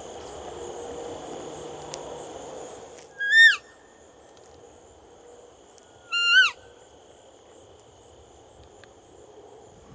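Two short elk cow calls (mews), about three seconds apart. Each is a high whistled note that rises slightly and then drops off sharply.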